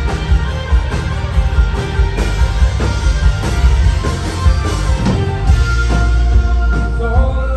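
Live rock band playing loud: electric guitars, electric bass and a drum kit in an instrumental passage with a steady drum beat.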